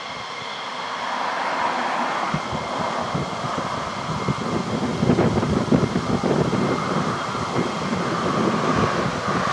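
McDonnell Douglas F-15E Strike Eagle's twin jet engines at taxi power as the jet rolls past, a steady whine over a rumble. The whine fades after a couple of seconds while a rough, uneven rumble builds up and is loudest through the middle.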